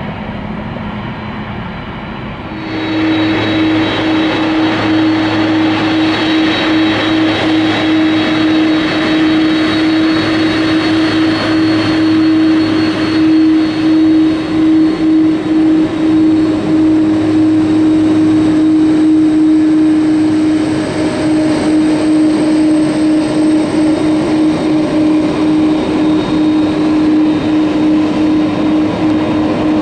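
Cargojet Boeing 767 freighter's twin jet engines running at taxi power as the aircraft rolls past close by: a steady whine over a broad hiss. It gets clearly louder about two and a half seconds in, then stays steady.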